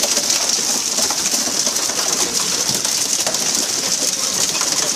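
Steady loud hiss and splatter of water sprayed from the sides of a pole-and-line tuna boat onto the sea surface.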